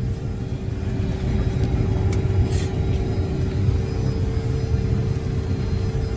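Aircraft engines running steadily, heard from inside the cockpit as a low rumble with a constant hum.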